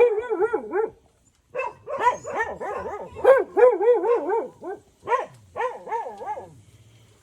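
A dog whining and yowling in long pitched calls whose pitch wavers up and down several times a second, in three runs with short breaks between them.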